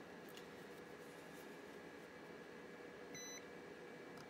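A single short electronic beep about three seconds in, over a faint steady hum.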